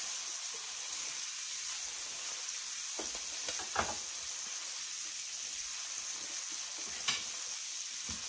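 Filet mignon steaks searing in butter with garlic in a cast iron skillet: a steady high sizzle, with two brief sharper sounds about four and seven seconds in.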